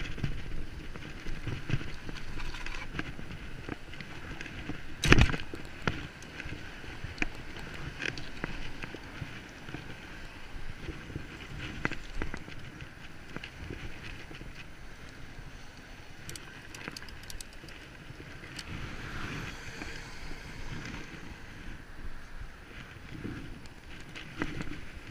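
Bicycle being ridden: steady tyre and frame rattle with wind on the microphone, and one hard thump about five seconds in.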